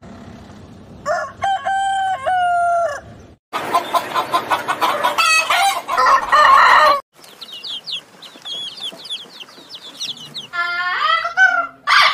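Roosters crowing: one long crow about a second in, then a busier, louder stretch of crowing and clucking from several birds. Faint high chirping follows, and another harsh call comes near the end.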